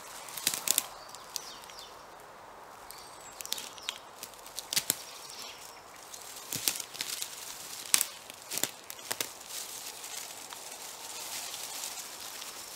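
Footsteps of a person and a small dog on dry fallen leaves and dead twigs: rustling and crunching, with sharp twig cracks at irregular moments, the loudest about two-thirds of the way through.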